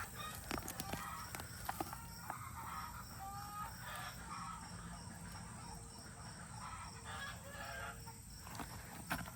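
Chickens calling faintly in the background, short scattered calls with some crowing, and a few light clicks.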